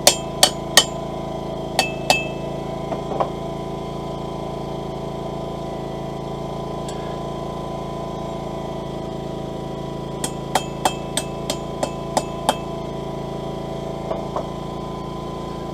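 Hammer blows ringing on a hot-punch, driving the slug out of a hole punched in hot steel: a handful of blows, a pause of several seconds, then a quick run of about eight blows and two lighter taps. A steady hum runs underneath.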